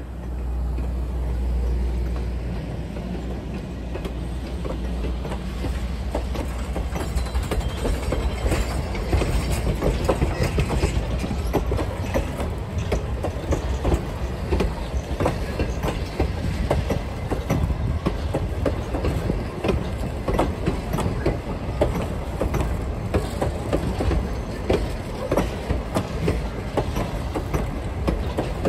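Passing train rolling by on jointed track. A low rumble comes first, then a dense clatter of steel wheels clicking over rail joints sets in and keeps on.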